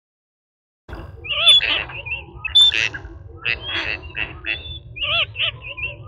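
Birds calling in a quick run of short, high calls that start about a second in, over a low background rumble.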